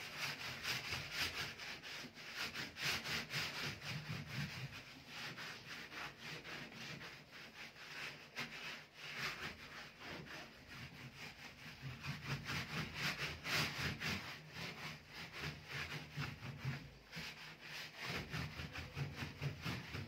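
Hand scrubbing the stainless-steel side panel of a gas stove with a cleaning product, a fast, continuous back-and-forth rubbing against the metal to lift baked-on grime.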